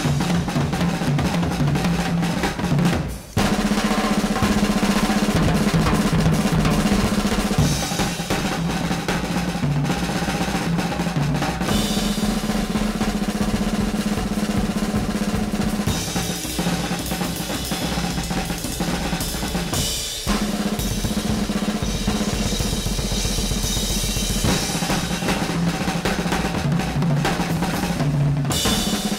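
Background music with fast, heavy drumming throughout, cut sharply twice, about 3 seconds in and again near 20 seconds.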